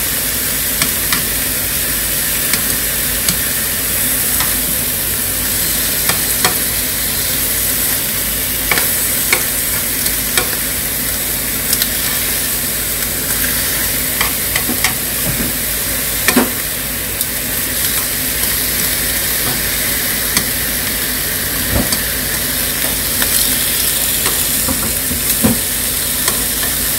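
Thin slices of hanwoo beef sirloin sizzling steadily in a hot nonstick frying pan. Irregular sharp clicks and taps come throughout as chopsticks turn the meat against the pan.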